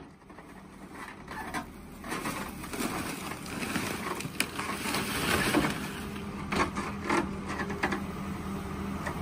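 Backhoe bucket dragging through and crushing a heap of broken sheet material and boards, a crackling clatter with sharp knocks that builds over the first couple of seconds. The backhoe loader's diesel engine runs steadily underneath.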